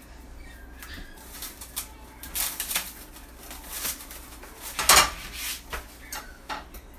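Food-prep handling noises at a kitchen counter: a run of short rustles and knocks from hands working at a cutting board, the loudest about five seconds in.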